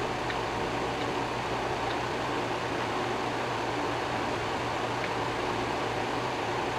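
Steady machine whir like a fan or air conditioner running, with a low hum under it and a few faint, short high-pitched ticks.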